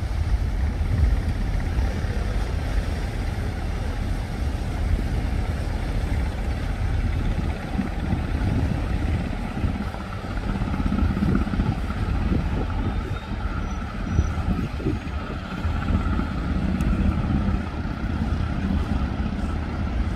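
Steady low engine drone with a higher whine that grows louder in the second half: the diesel engines of a fast passenger ferry running past at speed.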